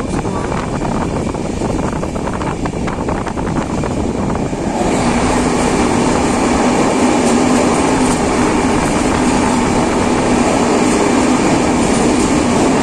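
Passenger train running along the track, heard from an open door: wheels on rails and rushing air. About five seconds in, the train enters a tunnel and the noise suddenly becomes louder and fuller, with a steady hum under it.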